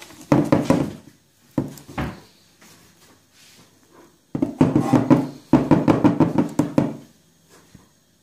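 Plastic case of a small 12 V sealed lead-acid battery knocking and rattling as gloved hands handle it: three bursts of rapid clicks, the longest from about four to seven seconds in.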